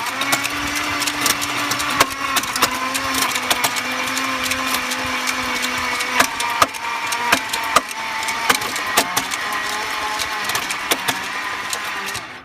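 1998 BMW 740iL's V8 being cranked over by the starter for about twelve seconds without catching: a steady whine with irregular clicks and knocks over it, cutting off suddenly near the end. It doesn't sound good, and with spark and fuel confirmed the owner suspects the timing chain or its guides.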